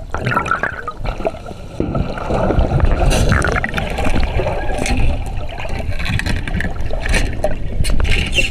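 Water rushing and sloshing with a heavy low rumble, broken by scattered knocks and clatter.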